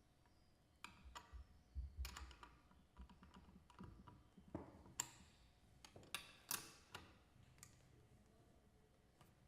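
Faint, irregular clicks and taps of a wrench and small metal hardware as the nut on the tricycle seat screw is fitted and tightened.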